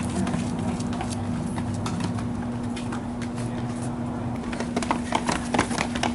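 Footsteps of two people running on a concrete path and then up concrete stairs, the quick footfalls coming thickest near the end. A steady low hum runs underneath.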